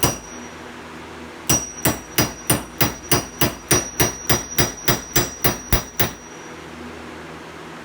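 Steel hammer striking a metal punch tool against a Jeep Wrangler TJ door hinge pin bushing held in a bench vise, each blow ringing. One blow at the start, then after a pause a steady run of about eighteen quick blows, about four a second, stopping near six seconds in.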